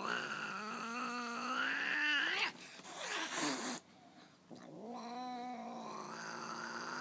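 Angry Persian cat giving a long, low growling yowl that rises slowly in pitch. It breaks into a sharp hiss about three seconds in, then after a short pause starts the low growling yowl again: the warning sounds of an annoyed cat that doesn't want to be touched.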